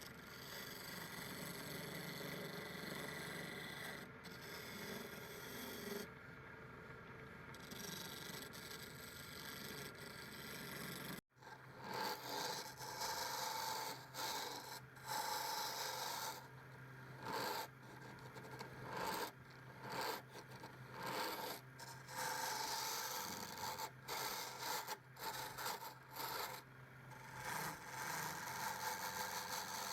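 Wood lathe running with a turning tool scraping against the spinning wood, in repeated uneven strokes over a steady motor hum. The sound cuts off abruptly about 11 seconds in and starts again.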